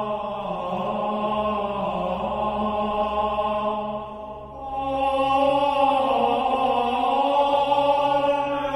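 Dramatic music of sustained, chant-like choral voices holding long notes. It dips about four seconds in, then swells louder again.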